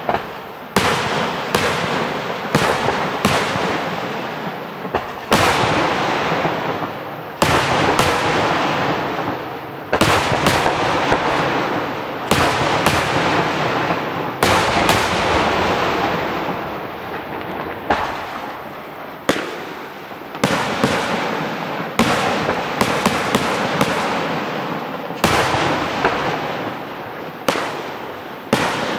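Aerial firework shells bursting one after another in a professional display: a sharp bang about every one to two seconds, each trailing off over a second or two into the next.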